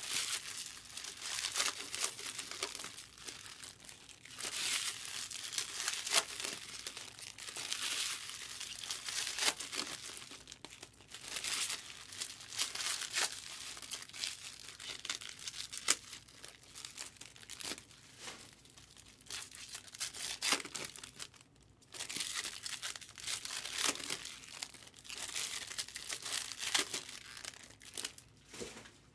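Foil Topps Chrome trading-card pack wrappers crinkling and tearing in repeated irregular bursts as packs are ripped open and handled.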